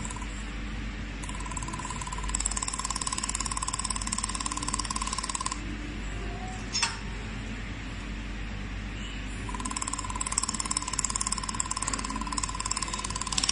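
Handheld fiber laser welder firing on a square metal tube in two passes of about four seconds each: a rapid high buzz with a steady tone under it. A short sharp click falls between the passes.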